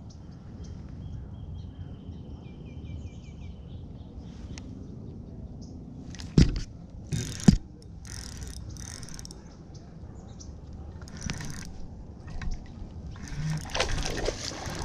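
A hooked bass splashing at the water's surface near the end. Earlier there are two sharp knocks around the middle and faint bird chirps.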